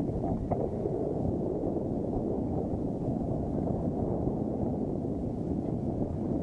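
Steady wind buffeting the microphone, a dense low rumble.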